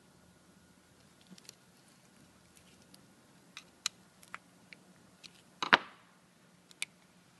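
Small sharp clicks and taps of Graco Fusion AP spray gun parts being handled and picked at by gloved hands with a small metal tool. About a dozen scattered clicks, with one louder clack a little before six seconds in.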